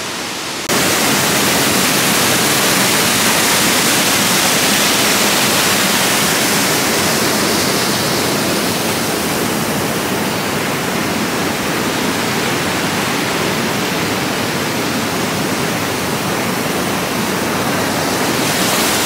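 Waterfall rushing: a steady, loud noise of falling water that comes in abruptly just under a second in.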